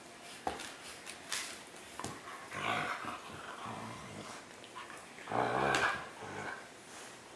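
Siberian husky making low, grumbling growl-like vocalizations while play-wrestling with a husky puppy. There is a short one about two and a half seconds in and a longer, louder one a little past the middle.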